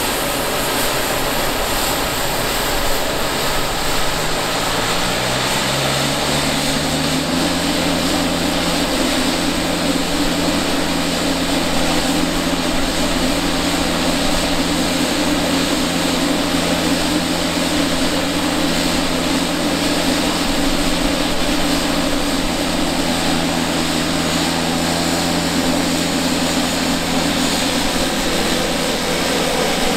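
Pilatus PC-12's Pratt & Whitney PT6A-67B turboprop coming up to idle after start. The propeller drone rises in pitch over the first several seconds, then settles into a steady idle, with a high turbine whine above it.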